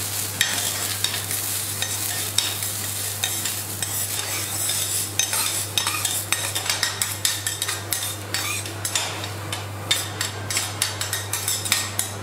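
Metal teppanyaki spatulas scraping and tapping on a steel griddle as they chop and mix green onion and fried garlic. The taps quicken into a fast run in the second half.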